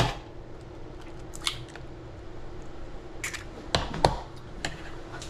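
Scattered clicks and knocks of a fillet knife and fish fillets being handled on a cutting board, the strongest knock about four seconds in, over a faint steady hum.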